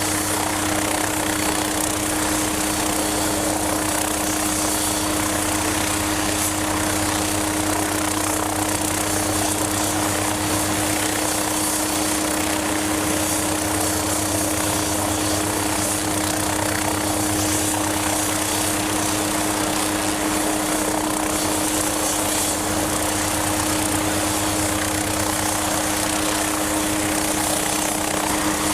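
MQ-8B Fire Scout unmanned helicopter's turboshaft engine and rotor running steadily: a constant hum with a steady low tone over a loud rushing noise, unchanging throughout.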